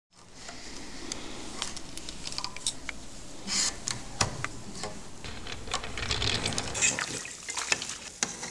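Raw wool being pulled and worked through the wire teeth of a hand wool comb: a continuous run of irregular scratchy clicks and rustles.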